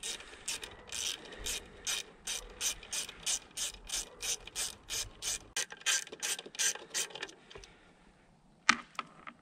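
Quarter-inch socket ratchet clicking in quick back-and-forth strokes, about three a second, as it backs out an 8mm bolt holding the outboard's oil tank. It stops about seven and a half seconds in, with a couple of last clicks near the end.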